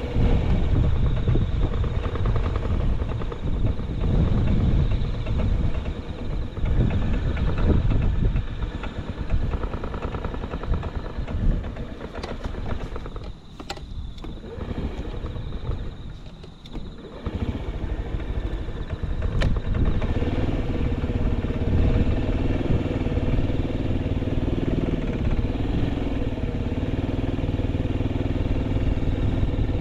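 Honda Zoomer AF58 carbureted 49 cc four-stroke single-cylinder scooter engine running. It is uneven for the first half, with two brief drops in level about halfway through, then settles into a steady idle about two-thirds of the way in. The seller calls it a quiet engine with no abnormal noise.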